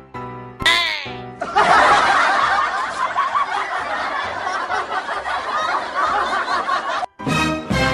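A short swooping sound effect, then a crowd laughing as an edited-in laugh track for about six seconds, cut off suddenly near the end.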